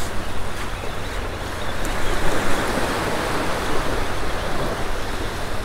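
Small surf washing up onto a sandy beach, one wave swelling and easing off about two to three seconds in.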